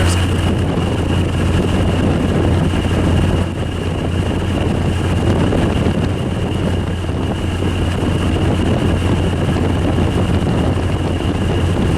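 General Electric ASW18DKS1 air conditioner's compressor and fan running outdoors: a steady, loud hum with the even rush of moving air over it.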